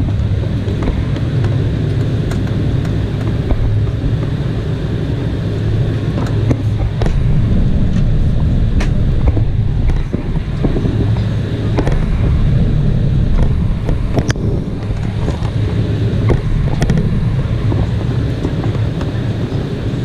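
Cabin noise of an Embraer E190 taxiing: a steady low rumble from its GE CF34 turbofans at taxi thrust and the rolling airframe, with a few scattered light knocks.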